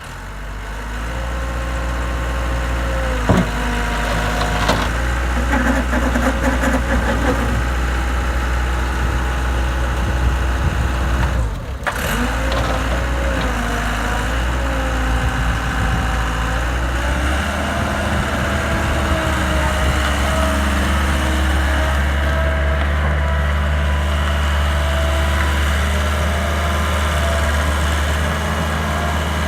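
Skid steer engine running steadily near idle, its pitch shifting a few times, with a sharp click a few seconds in and a brief dip about twelve seconds in.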